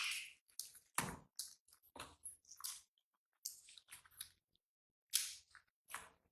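A run of short, irregular clicks and smacks with brief silent gaps between them.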